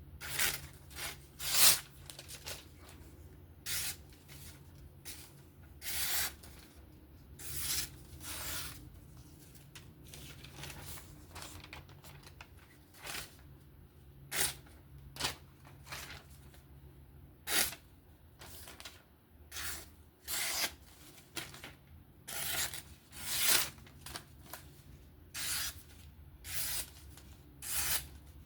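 Steel knife blade making short scraping strokes in an irregular series, roughly one a second, as the edge is finished by hand. A faint steady low hum runs underneath.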